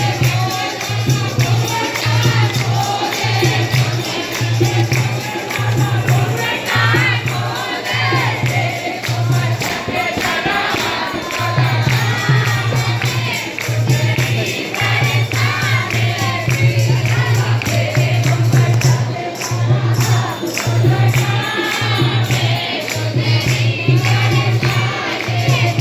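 A group of devotees singing a devotional chant together, with jingling hand percussion and a steady low beat repeating about once a second.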